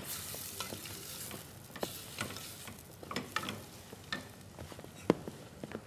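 A hand mixing and kneading yeasted flour dough in a plastic bowl: irregular rustling and scraping, with a sharp knock about five seconds in. Onions frying in oil in a casserole give a steady sizzle underneath.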